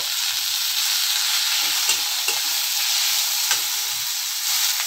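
Chopped tomatoes and green chillies sizzling in hot oil in a metal kadai with fried onion and spices, a steady hiss. A metal spatula stirs them, scraping and knocking against the pan a few times.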